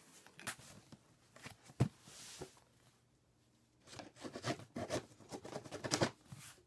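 A knife cutting open a cardboard box: scattered clicks and scrapes, a short slicing hiss about two seconds in, then a run of quick scraping strokes through the last few seconds.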